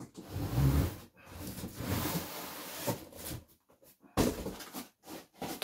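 A cardboard box and its cardboard inner packaging being handled and pulled apart, a scraping rustle with a dull thump in the first second. About four seconds in there is a sharp knock, then a lighter one.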